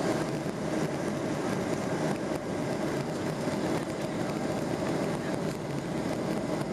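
Steady cabin noise of a Boeing 737-800 on final approach with flaps extended: the CFM56-7B engines and rushing airflow heard from a seat over the wing, with a steady hum underneath.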